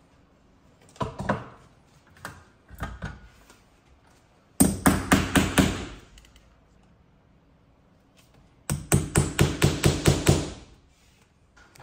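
Hammer striking in two quick runs of about seven or eight blows each, roughly five a second, with a few lighter knocks before them.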